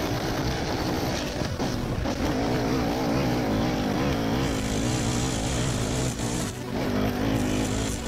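Honda UMK425 four-stroke brushcutter running at high revs, its engine note wavering under load as the line head cuts through thick couch grass and weeds. The revs dip briefly about six and a half seconds in.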